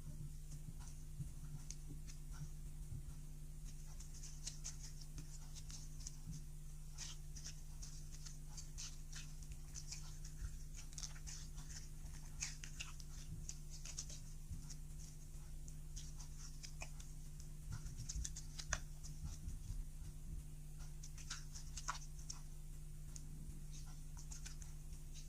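Clear slime being kneaded and stretched by hand, giving an irregular run of small sticky crackles and clicks over a steady low hum.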